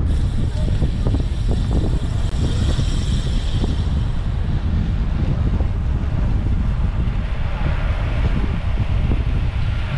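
Wind buffeting the microphone, a heavy rough rumble throughout, with a faint high-pitched whine from about two to four seconds in.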